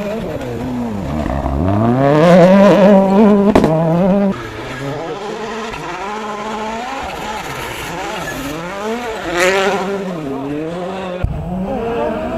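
Rally car engine revving hard, its pitch climbing and dropping through gear changes, loudest as the car passes close about two seconds in, with a sharp crack about three and a half seconds in. It then runs on more quietly with revs rising and falling, and another engine cuts in near the end.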